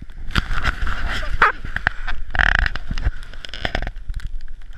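Handling noise and snow scraping from a body-worn camera during a run down a ski slope: irregular knocks and rustles of the jacket against the camera, with a louder scrape about two and a half seconds in.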